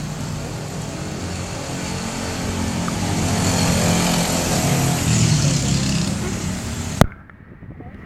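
A motor vehicle engine running steadily. A sharp click about seven seconds in, after which it is much quieter.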